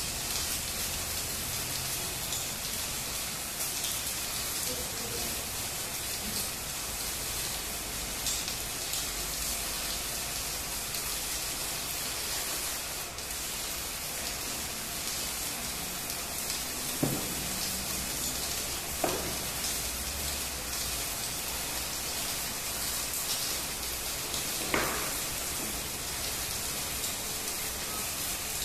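Electric arc welding: the arc crackling and sizzling steadily as the weld is laid, with three brief, sharper pops in the second half.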